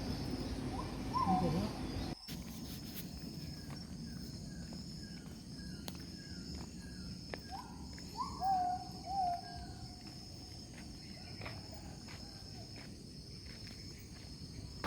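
Steady high-pitched insect drone with birds calling over it: a run of short repeated notes, about two a second, and louder whistled calls that bend down in pitch, once early and again about eight seconds in. The low background noise drops away suddenly about two seconds in.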